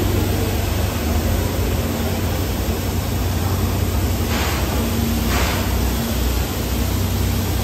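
JNR Class 8620 steam locomotive standing with steam hissing steadily from a pipe beside its chimney over a low rumble and a faint hum. Two louder bursts of hiss come about a second apart, past halfway.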